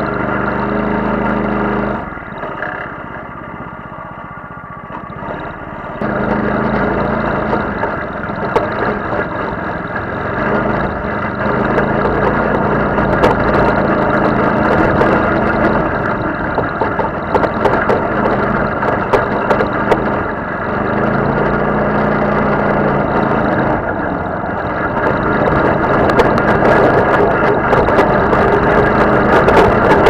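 Off-road buggy engine running hard on board, falling to a quieter, lower note for a few seconds near the start, then pulling again. Frequent clicks and knocks over rough ground, getting busier near the end.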